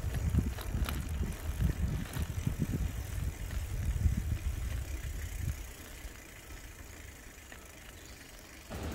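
Bicycle riding along a tarmac lane: a low rumble with short knocks and rattles from the bike, which grows quieter and steadier about five and a half seconds in.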